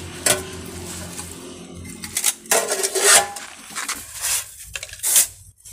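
Steel two-block concrete block mould and shovel being handled and the mould set onto its wooden stand: several sharp metallic clanks with a short ring, the loudest about three seconds in.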